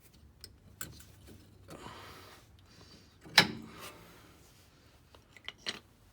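A few light metallic clicks and one sharp knock about three and a half seconds in, as a brake pad is handled and seated against the caliper bracket.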